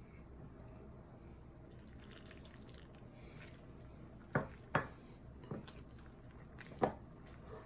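Water being added to flour in a mixing bowl for roti dough, with a faint trickle and four short, sharp drips and knocks in the second half.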